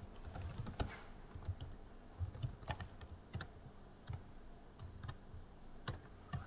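Typing on a computer keyboard: light, irregular keystrokes.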